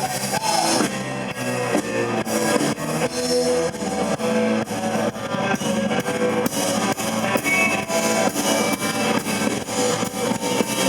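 Blues-rock band playing an instrumental passage without vocals: guitar over a drum kit keeping a steady beat.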